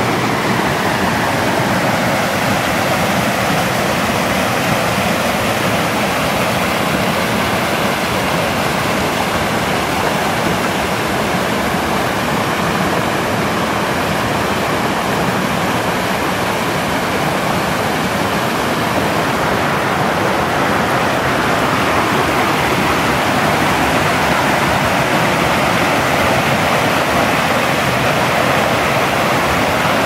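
Rocky mountain stream rushing over boulders and small cascades: a steady rush of water, a little louder in the second half.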